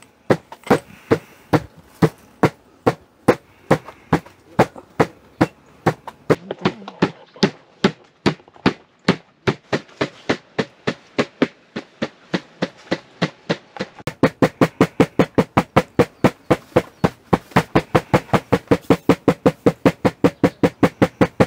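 Raw pork loin cutlets for tonkatsu being pounded flat to tenderize them: a steady run of dull thuds, about three a second, that speeds up to about five a second and grows louder about two-thirds of the way through.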